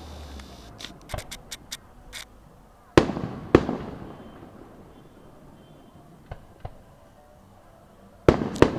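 Fireworks going off: a quick run of small crackling pops, then pairs of loud bangs, one pair about three seconds in and another near the end, each fading off in a rumbling tail, with a couple of fainter distant pops in between.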